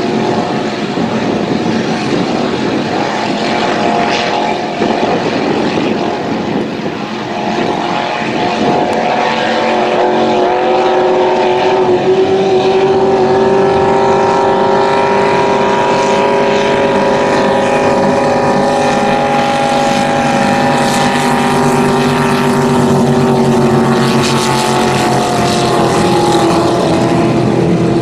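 Racing motorboat engines running flat out, a loud steady drone with a hiss of spray and wind. From about ten seconds in, the engines' several tones become clearer and hold steady.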